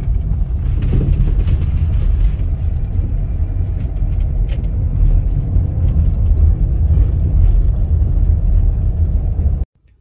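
Volkswagen Vento driving, heard from inside the cabin: a steady low rumble of road and engine noise with a few faint knocks. It cuts off suddenly near the end.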